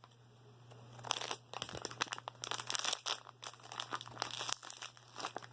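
A small plastic blind bag crinkling and crackling as it is opened and handled, in a dense run of crackles starting about a second in.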